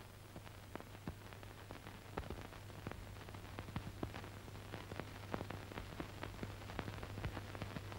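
Surface noise of an old film soundtrack: irregular crackles and clicks over a steady low hum, with no narration or music.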